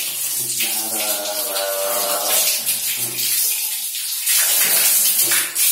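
Tap water running and splashing over a dog being rinsed, a steady hiss that grows louder about four seconds in. A drawn-out vocal sound rises and falls for a couple of seconds about a second in.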